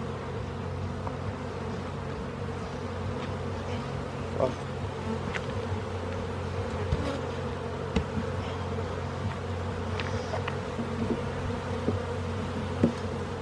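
Honeybees buzzing in a steady hum around an opened wooden hive. A few sharp clicks come from the hive tool against the wooden frames and boxes.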